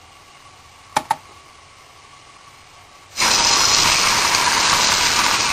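Tomato sauce spooned into hot oil with frying garlic in a pan, setting off a sudden loud sizzle about three seconds in. Before it come two short clicks about a second in.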